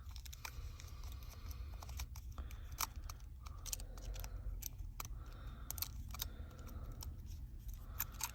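Scattered small clicks and ticks of tools and parts as a smartphone's logic board is pried loose and lifted out of its frame, with a few light scraping sounds between them.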